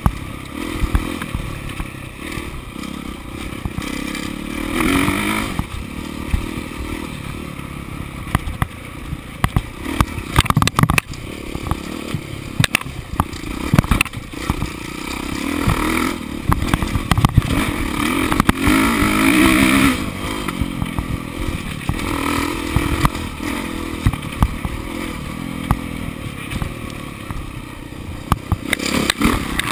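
Dirt bike engine revving up and down as the rider accelerates and backs off, swelling loudest several times. Many sharp knocks and clatters from the bike over rough trail ground run through it.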